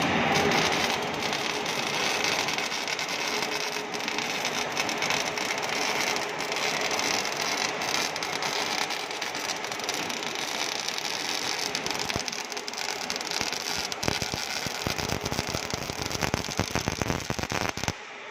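MIG welding arc of an automatic CNC oil-port welding machine, crackling and sputtering steadily as it lays a weld around an oil port on a hydraulic cylinder tube; the crackling stops abruptly near the end.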